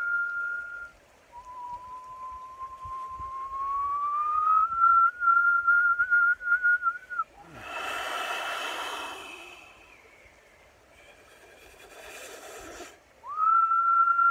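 A man whistling long single notes through pursed lips. One held note stops about a second in, then a long note rises slowly and wavers. After that come two breathy, blown exhales, and near the end a note that sweeps up quickly and holds.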